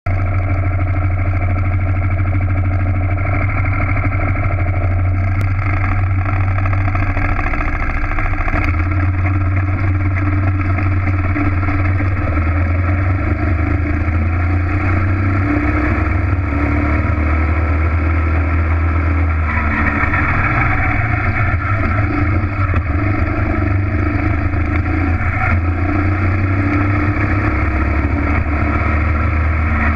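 Racing kart engine running hard, heard from onboard the kart, its pitch dropping and climbing several times as the throttle is lifted and reapplied.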